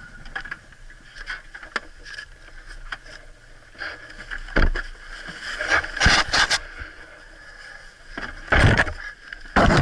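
Irregular knocks, scrapes and rustling of dry grass around an overturned Yamaha Grizzly ATV being handled, with clusters of louder clattering thumps about four and a half, six and nine seconds in.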